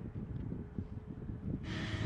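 Low wind rumble on the microphone with a faint steady hum. Near the end it switches abruptly to the loud, high whine of a running jet aircraft engine.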